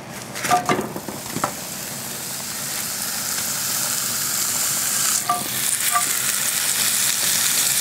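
Steak sizzling as it is laid onto a very hot, oven-preheated grill pan: a few knocks as the meat goes down, then a hiss that grows steadily louder.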